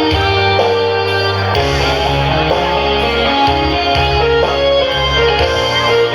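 Instrumental band music led by electric guitar over a bass line, with no singing.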